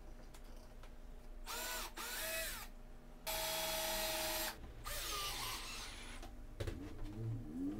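Cordless drill driving screws into plywood in several short runs, each lasting about a second, with the longest in the middle. It ends with a rising whine.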